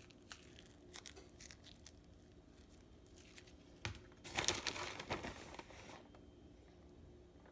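Plastic bag crinkling and rustling in the hand: faint scattered crackles, then a louder rustle lasting about a second and a half, about four seconds in.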